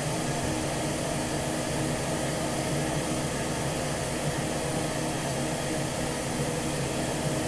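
Steady steam hiss from a standing steam locomotive, an even rushing noise with a faint low hum underneath.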